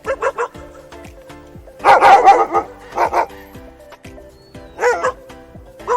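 A dog barking in short bursts, the loudest run of barks about two seconds in and single barks near three and five seconds, over background music.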